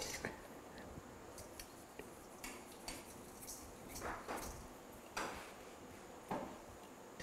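Faint, scattered clinks and scrapes of kitchen items being handled at a counter: a glass jar of herb salt and metal bowls, a few short knocks spread over several seconds.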